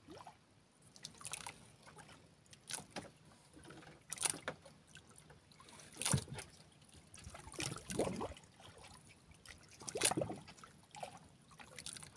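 Water lapping and slapping against the hull of a small wooden boat, in short irregular splashes about every second or two.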